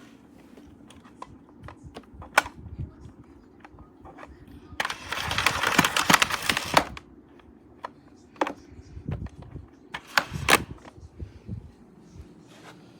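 Plastic clicks and knocks from handling a Bissell CleanView upright vacuum's dust tank, with a rough rushing rattle lasting about two seconds around the middle as the tank is emptied.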